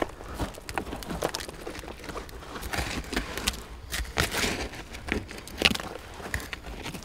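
Gloved hand raking and scooping through loose, gritty dark soil, making an irregular run of short scrapes and crunches, several a second.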